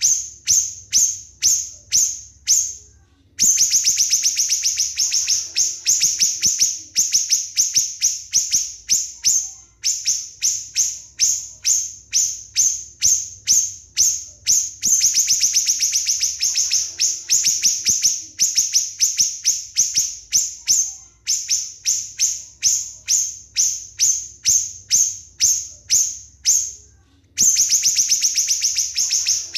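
Small songbird calling in rapid 'nembak' bursts: sharp, high-pitched chirps repeated three to four times a second, broken three times by dense, fast trills.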